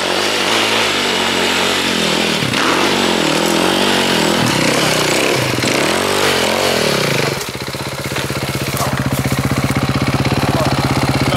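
KTM enduro dirt bike's engine revving up and down repeatedly as the bike struggles up a steep dirt climb, then settling to a steady, lower-rpm run about seven seconds in.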